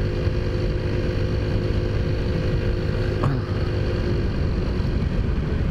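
Taotao Zummer 50cc four-stroke scooter engine running steadily at riding speed, under an even rush of wind and tyre noise. A brief falling tone comes about three seconds in.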